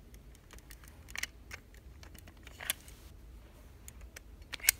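Scattered small clicks and taps of plastic toys being handled, with the sharpest pair of clicks near the end.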